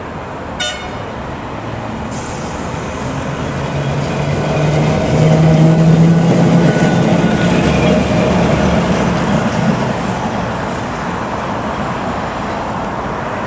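A tram passes along the track, its running noise and low motor hum building to a peak in the middle and slowly fading. A short, sharp pitched tone sounds under a second in.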